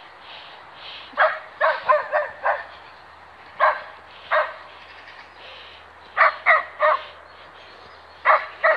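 A dog barking repeatedly: a quick run of about five barks, then groups of two or three with short pauses between.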